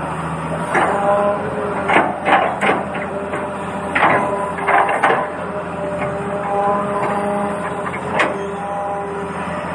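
A toy excavator's small electric motor whirring in short spells, with irregular plastic clicks and knocks.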